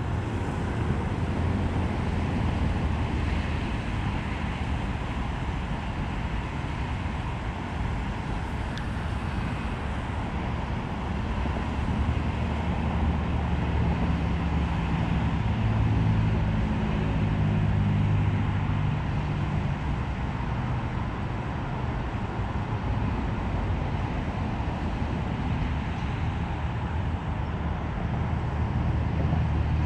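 Steady highway traffic noise, with a low engine hum that swells and fades as vehicles pass, strongest around the middle and near the end.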